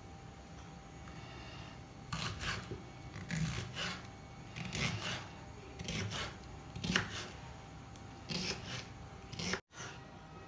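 Kitchen knife chopping yellow bell pepper on a wooden cutting board: a run of about ten short chopping strokes, often two close together, starting about two seconds in.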